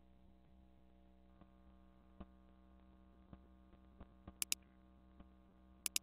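Faint steady electrical mains hum, with scattered light computer-mouse clicks and two sharp double clicks in the second half, about a second and a half apart, as the cursor works in a search box.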